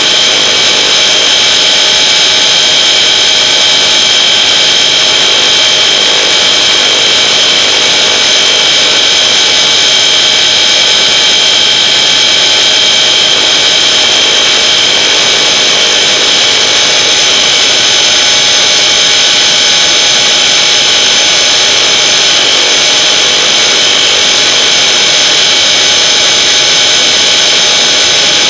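Traxxas electric RC car at high speed, heard from on board: a steady high whine from the motor and drivetrain over tyre and wind noise.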